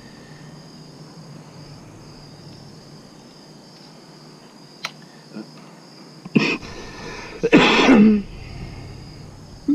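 Crickets chirring steadily, with a man coughing twice about two-thirds of the way in, the second cough the louder and longer. A faint click comes a little before, as a phone is handled in a silicone handlebar mount.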